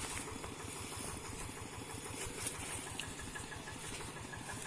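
Single-cylinder diesel engine of a two-wheel hand tractor running steadily with a fast, even chugging.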